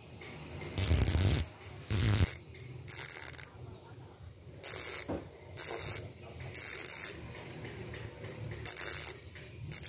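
Strummer MT-650 bicycle rear hub's freehub body spun by hand, its ratchet pawls clicking in a fast, dense buzz. About eight short spins of half a second or so, the first two loudest.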